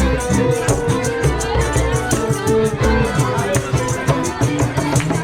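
Music with a steady beat: drums with regular high ticks, a strong bass and held melodic notes.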